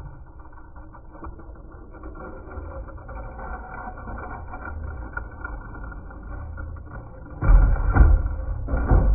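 Two toy monster trucks rolling down a plywood plank ramp, a low rattling rumble of small wheels on rough wood. Louder rough rumbling comes in near the end.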